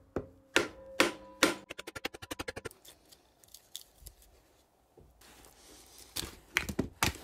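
Knocks on a wooden block held against the rust-seized piston of a British Seagull outboard, driving it out of its cylinder. There are four separate strikes with a short metallic ring, then a quick run of about ten lighter taps. Near the end come a few knocks and clatters as the loosened cylinder is handled.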